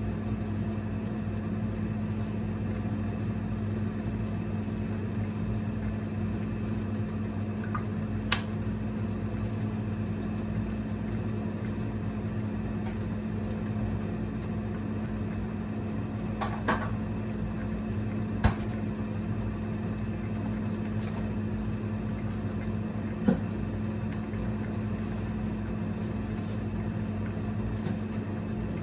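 Single-burner induction (IH) cooktop humming steadily as it heats a pot at a simmer, with a few sharp clicks from the cookware.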